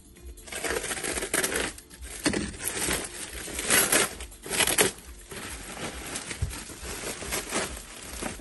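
Plastic packing film and bubble wrap crinkling and rustling as they are pulled off a part. It comes in irregular bursts, loudest about four to five seconds in, then softer rustling.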